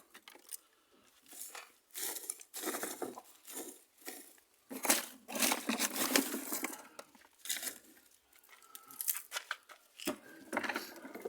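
Dry grapevine and small wood chips being snapped and handled by hand: irregular bursts of crackling and tearing, each lasting about a second, with short pauses between.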